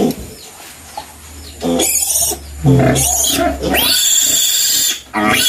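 Piglet squealing in a series of loud, high screams, about four, the third the longest, while it is held and cut during castration.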